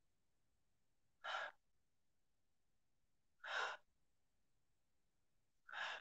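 A man's breaths, three of them about two seconds apart, paced with the arching and rounding of cat-cow stretches.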